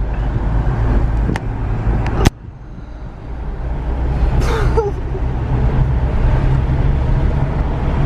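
Car cabin noise while driving with a window open: steady low engine and road rumble with wind rushing in. A sharp click a little over two seconds in, after which the noise drops suddenly and then builds back up.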